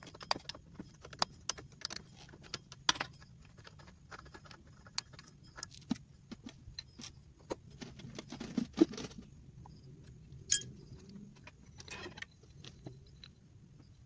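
Scattered metallic clicks, clinks and rattles of an automatic scooter's CVT being dismantled by hand: the nut, fan pulley face and roller variator coming off the crankshaft. A couple of longer scraping rattles stand out about eight to nine seconds in and again near twelve.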